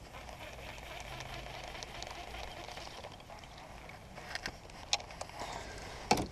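Quiet river ambience with a faint steady hiss, then a few sharp clicks and knocks from fishing gear being handled in a kayak, ending in a loud bump and rustle as clothing brushes against the camera.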